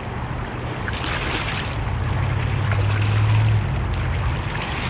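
Rushing creek water with wind rumbling on the microphone; a low hum swells about two seconds in and drops away about a second and a half later.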